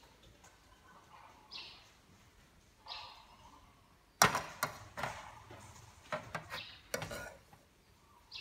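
Metal ladle knocking against an aluminium cooking pot: one sharp clank about four seconds in, then several lighter knocks over the next three seconds.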